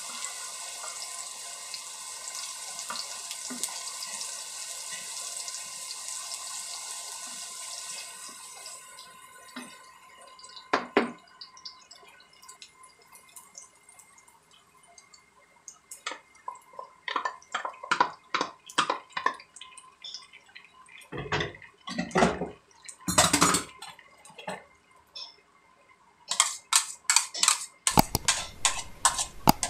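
Chopped aromatics sizzling in hot oil in a wok, a steady hiss that stops suddenly about eight seconds in. After that come scattered knocks and clatters of utensils and a bowl against the pan, with a run of rapid taps near the end.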